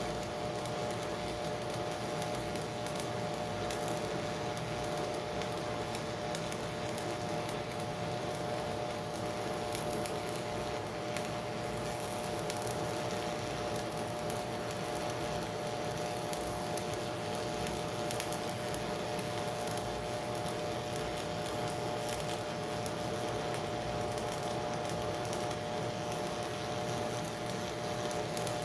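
Arc welding with a Miller Econotwin HF transformer welder set to electrode negative: a steady, unbroken crackle and sizzle of the arc laying a bead on dirty steel, over a constant electrical hum.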